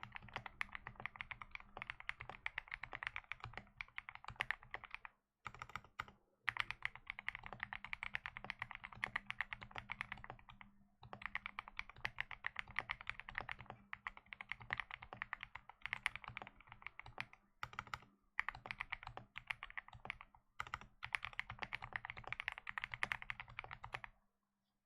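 Fast typing on a custom Alice-layout mechanical keyboard with Autumn Rain switches, an FR4 plate and PBT keycaps: a dense run of key clacks broken by several brief pauses, stopping about a second before the end.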